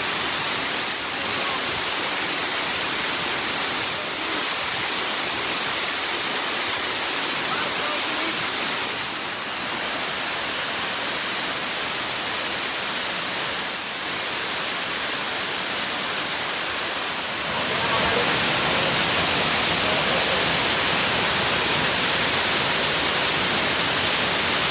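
Waterfall water rushing close by, a steady hiss-like noise, becoming a little louder and fuller about three-quarters of the way through.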